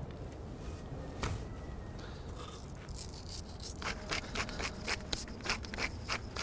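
Wooden pepper mill being twisted over raw meat: a quick run of sharp grinding clicks, about four or five a second, starting about four seconds in.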